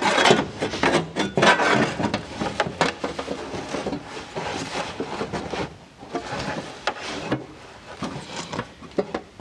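Sheet aluminium duct panel being handled and test-fitted against the car's radiator opening: irregular scraping and rubbing with light knocks.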